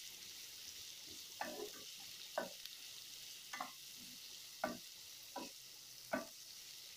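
Chopped tomatoes and onions sizzling in oil in a stone-coated frying pan, with a wooden spatula scraping across the pan about once a second as they are stirred.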